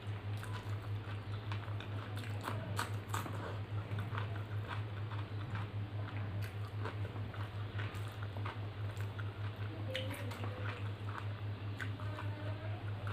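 Close-miked chewing and wet mouth sounds of rice and dal eaten by hand, with small clicks and squishes of fingers working rice on a steel plate. A steady low hum with a fast, even pulse runs underneath and is the loudest part.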